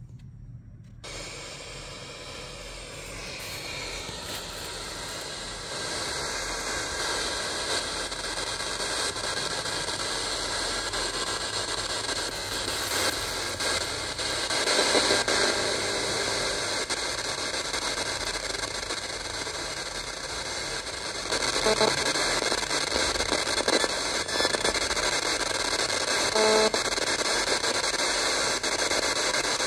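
Wirata portable radio's speaker hissing with FM static as its tuning dial is turned between stations. The hiss starts about a second in and grows louder.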